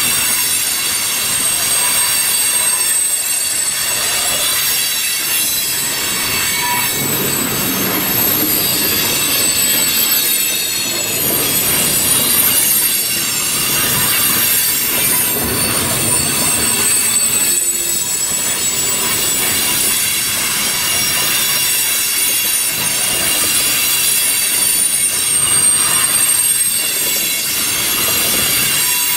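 Freight train of tank cars rolling past close by: a steady rumble and rattle of steel wheels on the rails, with a continuous high-pitched squeal from the wheels.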